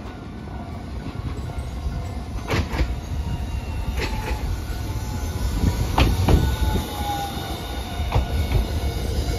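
Hiroshima Electric Railway Green Mover APEX low-floor tram approaching and passing close by: a steady low rumble with pairs of sharp clacks about two seconds apart as its wheels cross rail joints, and a faint whine falling in pitch near the end.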